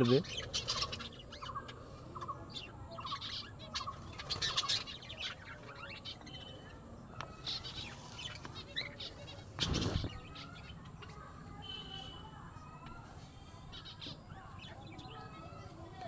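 Small pet birds in an aviary, lovebirds among them, chirping and calling in short high notes, with a quick run of repeated calls in the first few seconds and a brief trill about twelve seconds in. A single thump about ten seconds in.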